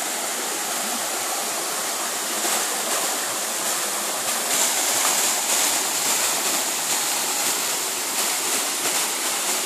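Fast-flowing hillside stream rushing over rocks and down a sloping rock slab, a steady full rush of water that swells slightly at times.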